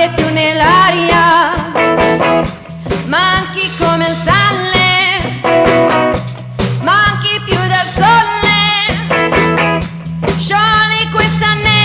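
Live band playing: a lead melody with vibrato in phrases of about two seconds over a steady low bass line and a busy rhythm.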